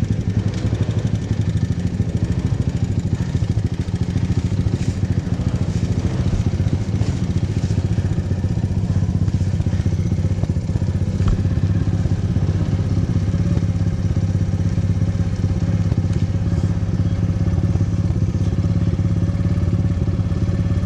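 Motorcycle engine running at a steady speed while riding, with no revving up or down.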